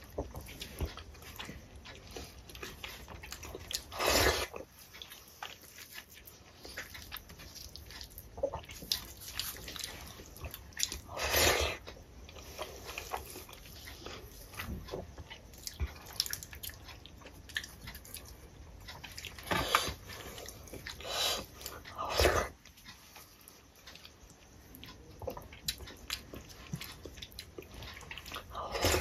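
Close-miked eating: wet chewing of rice and dal, with the soft squelch of fingers mixing rice and dal on a steel plate. A few louder short mouth noises stand out, each a few tenths of a second long.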